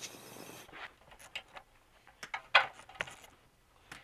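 Handling noise at a workbench: scattered light clicks and small metallic clinks, the loudest about two and a half seconds in.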